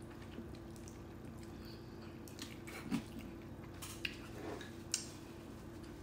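Quiet wet chewing and smacking of a mouthful of jjajangmyeon noodles, with a few small sharp clicks between about two and five seconds in.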